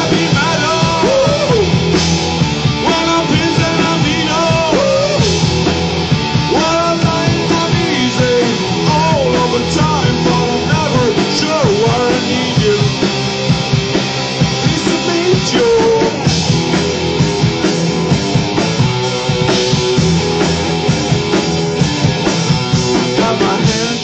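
Rock band playing live: electric guitars and a drum kit, with a gliding lead melody over them through the first two-thirds.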